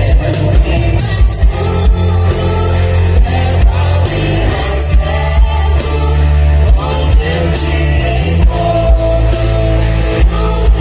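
Contemporary Christian worship song played by a band: a singing voice over a steady beat with heavy bass.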